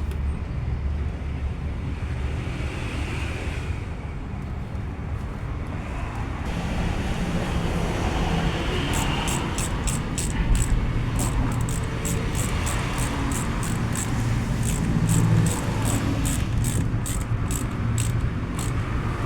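Isuzu Mu-X turbo-diesel engine running steadily, a little louder after about seven seconds, while its turbo noise is being looked into. From about halfway in, a regular light ticking repeats a few times a second over the engine.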